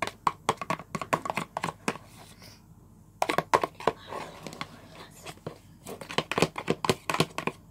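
Sticky pink glue slime being stirred and squished in a plastic bowl, making irregular wet clicks and crackles, with a short pause about two to three seconds in.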